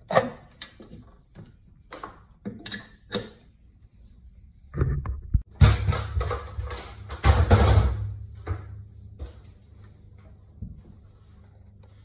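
Handling noise: a string of sharp clicks and knocks, then about three seconds of loud rubbing and bumping with a low rumble as the recording phone is moved, then a few faint knocks.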